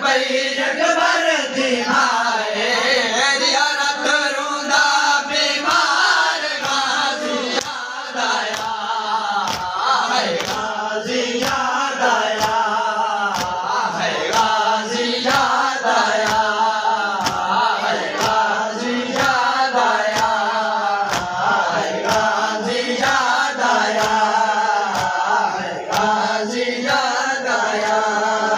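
A group of men chanting a noha (Shia lament) together, over steady chest-beating (matam) that strikes about three times every two seconds.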